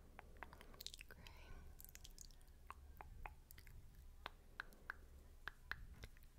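Wet ASMR "spit painting" mouth sounds close to the microphone: soft, irregular spit clicks and smacks, a few each second.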